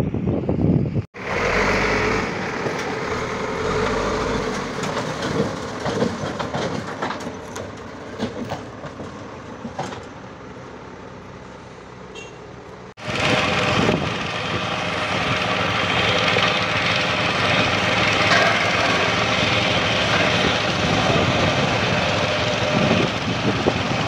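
Caterpillar backhoe loader's diesel engine running as the machine drives along a dirt track, slowly growing fainter. About halfway through the sound cuts abruptly to a louder, steady engine noise heard close up.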